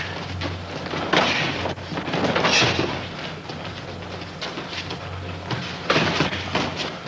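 Two martial artists sparring barefoot on padded mats: feet scuffing and thuds of kicks and blows, with sharper noisy bursts about a second in, around two and a half seconds and around six seconds, over a steady low hum.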